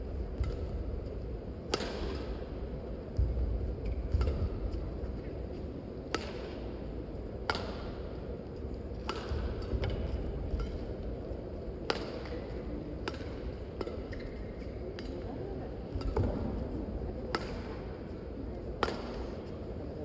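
Badminton rally: sharp cracks of rackets striking a shuttlecock, coming every one to four seconds, over a steady low hum of the hall.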